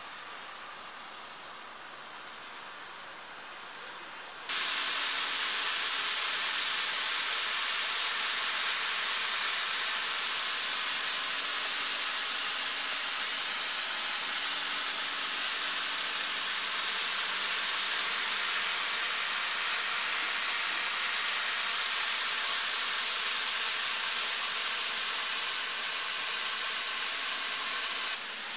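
Snowmaking lances hissing steadily as they spray water and compressed air to make snow. The hiss turns much louder and closer about four seconds in, holds steady, and drops back just before the end.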